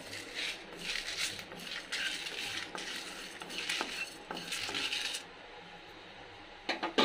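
Wooden spatula stirring and scraping whole spices, coriander seeds and dried red chillies, as they dry-roast in a nonstick kadai. The stirring stops about five seconds in, and a couple of sharp clicks come near the end.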